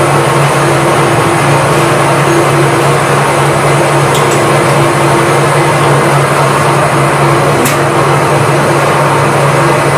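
Steady, loud machine hum and noise of workshop machinery, with a couple of light sharp clicks about four and eight seconds in.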